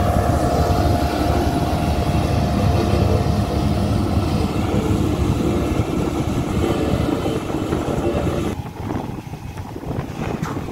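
Diesel engine of a single-drum road roller running steadily as it compacts freshly laid gravel on a dirt road, moving away. About eight and a half seconds in, the higher part of the sound cuts off sharply and it grows quieter.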